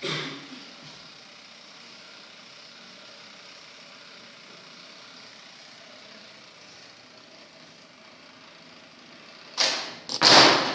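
Jenga-block tower being blown up: a sharp sound at the start, then a steady hiss, then near the end a run of loud, noisy blasts.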